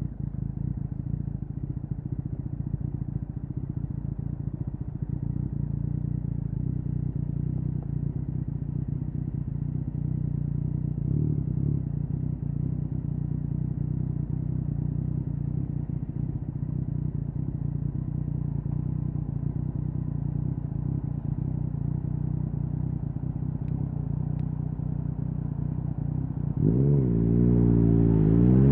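Yamaha MT-09's three-cylinder engine idling steadily through an Akrapovic exhaust. Near the end it revs up, dips for a moment, then climbs in pitch as the bike accelerates away.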